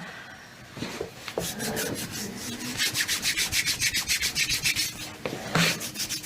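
Brisk rubbing of hands or skin, quickly back and forth at about seven strokes a second, starting a couple of seconds in and pausing briefly near the end.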